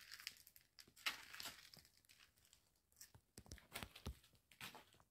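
Faint footsteps crunching and scraping over rubble, broken plaster and tile debris, with a few dull thuds about three and a half to four seconds in.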